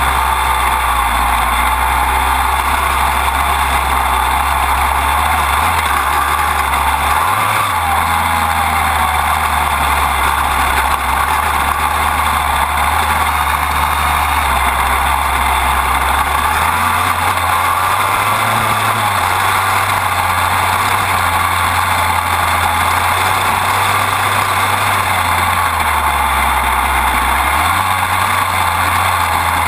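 Dirt bike engine running under way, heard close up from a low mount near the chain, with its note shifting a few times as the rider works the throttle. Wind and chain noise make a loud, steady rush over it.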